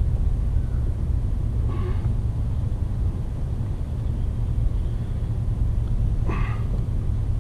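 Steady low wind rumble on the microphone, with two brief faint handling sounds about two seconds in and again near the end as the welding gun is positioned on the mower handle.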